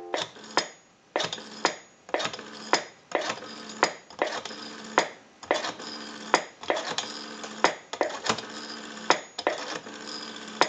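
Rotary dial of a brass telephone being dialed digit after digit: the finger wheel is pulled round and let spin back, with a series of sharp clicks. A faint steady hum runs underneath.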